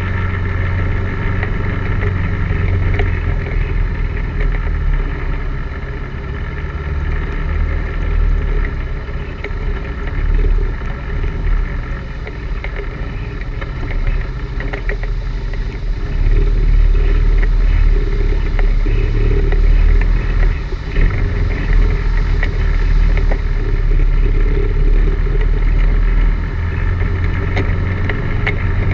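ATV engine running steadily under way on a rough, rocky trail, with scattered knocks and rattles from the machine over bumps; the engine gets louder about sixteen seconds in.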